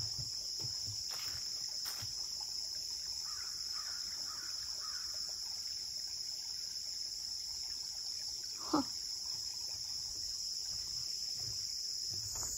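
Steady, high-pitched chorus of insects, with a few faint chirps in the middle and a single short falling note about two-thirds of the way through.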